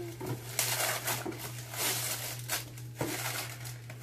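Gift wrapping paper crinkling and tearing in irregular bursts as a present is unwrapped.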